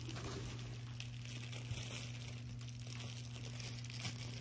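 Soft rustling and crinkling as a cotton top is unfolded and handled, over a steady low hum.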